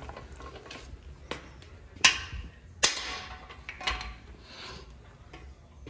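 Hand hammer striking a long steel drift bar set in a cast-iron Mopar 440 big-block, driving out the cam bearings: four sharp metallic blows with a brief ring, the second and third loudest.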